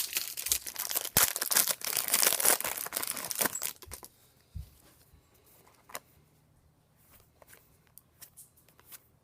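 Wrapper of a Bowman Draft baseball card pack being torn open and crinkled, dense and loud for about four seconds. After that come scattered light clicks and rustles as the cards are handled.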